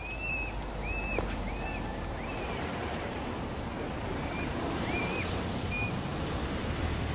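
Steady outdoor rush of wind with low rumble on the microphone, and a bird giving short whistled chirps: four in quick succession at the start and three more a few seconds later.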